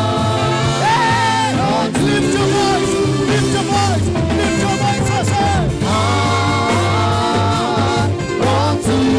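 Gospel praise music: a band with a moving bass line, and a voice singing a melody.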